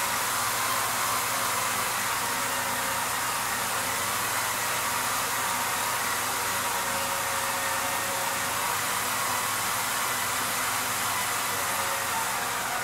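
Motors of a homemade six-axis motion-control camera rig running as it drives the camera to its next position: a steady whirring hiss with faint whines mixed in.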